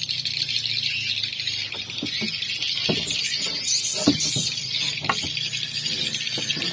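Light knocks and clicks of fishing rods and reels being handled on a wooden boat deck, several of them scattered through the middle, over a steady high-pitched hiss.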